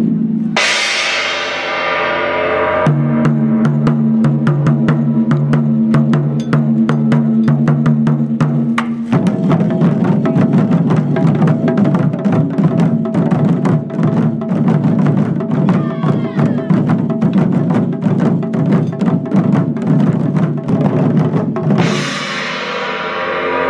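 Japanese taiko drums played in a rapid, continuous run of strikes. A bright ringing crash comes about half a second in and again near the end.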